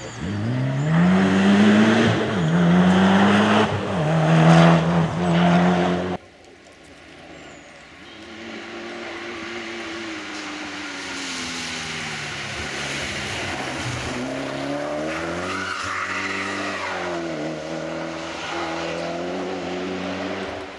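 Mitsubishi Lancer Evo VIII rally car's turbocharged four-cylinder engine under hard acceleration, its pitch climbing in steps through quick gear changes. It cuts off suddenly about six seconds in, and the car is then heard again, quieter, approaching on wet tarmac, its engine note dipping and rising as it slows for a bend and accelerates away.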